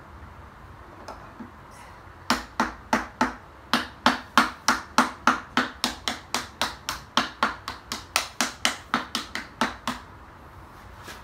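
A hammer tapping a piston down through a ring compressor into the cylinder bore of an 8.3 L Cummins C-Series diesel block: a steady run of sharp taps, about three a second, starting about two seconds in and stopping shortly before the end. The piston goes into the bore smoothly.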